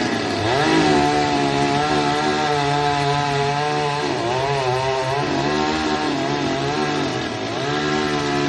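Chainsaw running at high revs while cutting a tree, its pitch dipping and recovering twice as the chain bogs into the wood.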